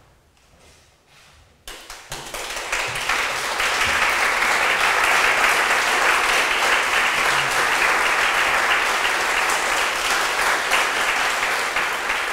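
Audience applauding: the clapping breaks out suddenly about two seconds in and swells into steady applause.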